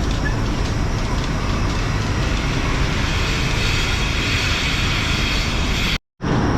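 Steady, loud mechanical noise of milking parlor equipment running during milking, with faint regular ticking in it. It cuts off abruptly near the end.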